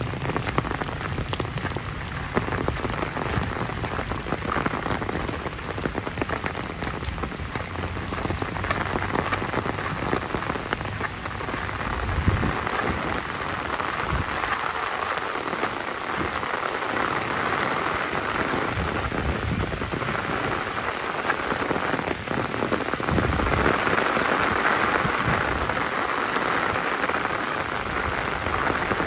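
Steady rain falling, an even wash of drops, with a few dull low thumps along the way.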